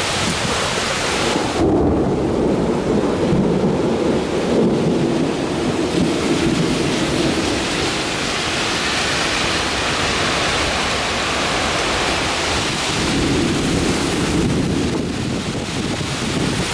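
Thunderstorm: rain falls steadily throughout, with a long rumble of thunder starting about two seconds in and another later on.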